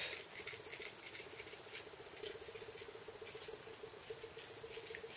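Hands rolling minced beef mixture between the palms: faint, irregular soft patting and rubbing of the meat against skin. A faint steady hum runs underneath.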